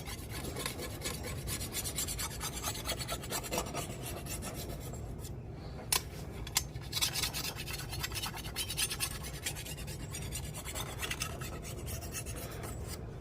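Small hand-held red jasper stone rubbed over the edge of an older machete in quick back-and-forth strokes, a steady gritty scraping of stone on steel. A single sharp click sounds about six seconds in.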